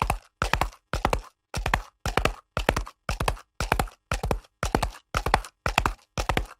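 Horse galloping on concrete: hooves strike the hard ground in quick clusters of three or four, about two clusters a second, in a steady, even rhythm.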